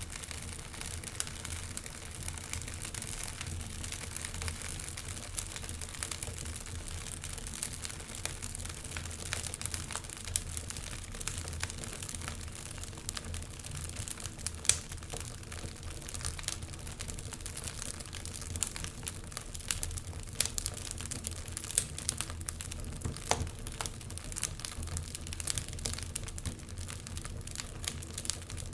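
Wood fire crackling in a fireplace: a steady hiss with frequent sharp pops and snaps, one louder pop about halfway through.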